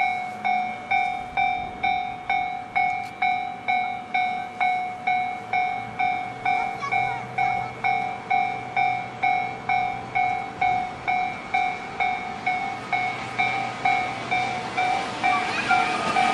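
Japanese level-crossing warning bell ringing, about two strikes a second. The DD200 diesel-electric locomotive's engine and wheels grow louder near the end as it creeps up to the crossing.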